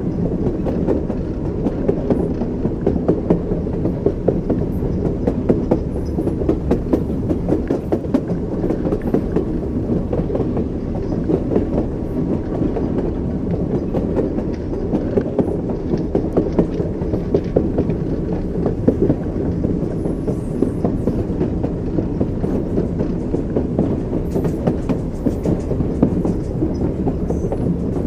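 Train wheels running over the rails: a steady low rumble with frequent short clicks and knocks from the wheels.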